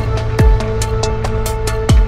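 Electronic background music with a beat of deep kick drums, each dropping in pitch, over quick hi-hat ticks and held synth tones.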